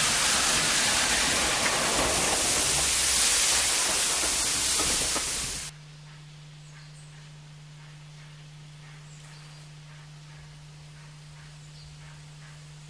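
Loud, even hiss of steam from Hunslet Austerity saddle tank No. 15 'Earl David' close by, cut off abruptly about five and a half seconds in. Then it is quiet, with a steady low hum and faint bird chirps.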